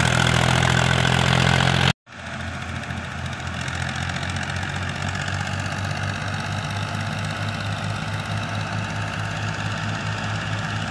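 Fiat 480 tractor's diesel engine running steadily while it drives a wheat thresher. The sound breaks off about two seconds in and returns quieter and further off, the engine and the thresher's whir running on together.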